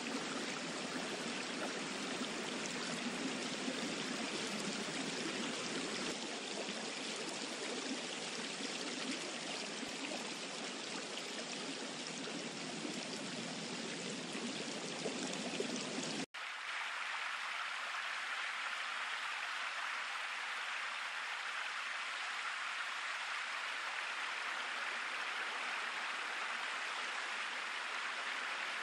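Synthetic running-water noise from an online sound generator, a steady rushing hiss like a stream. About sixteen seconds in it cuts out for an instant and comes back thinner and higher, without the low rumble.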